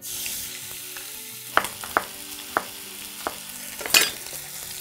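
Raw chicken pieces dropped into hot olive oil in a frying pan, sizzling straight away and frying steadily. Several sharp clicks sound over the sizzle, the loudest about four seconds in.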